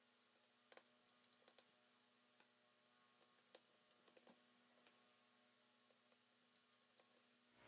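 Near silence, with a few faint clicks of a precision screwdriver turning out the small screws of a phone's top cover.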